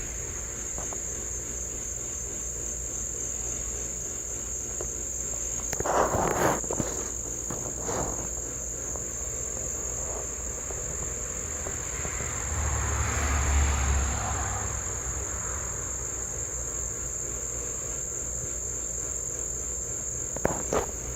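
A steady, high-pitched insect trill that runs on without a break, cricket-like. A few brief knocks or rustles come about six seconds in, and a low rumble comes about twelve seconds in.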